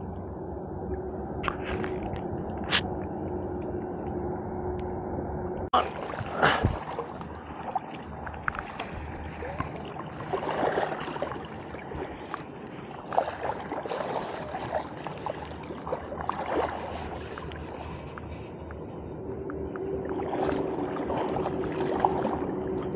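River water sloshing and gurgling close to the microphone, held just above the surface, with scattered splashes and sharp knocks. The sound grows fuller and busier from about six seconds in.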